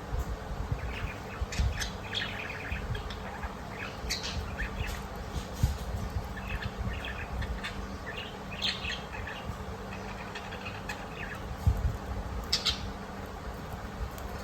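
Parakeets chirping: clusters of quick, short chirps and chatter, with one sharper call near the end. A low rumble with occasional knocks runs underneath.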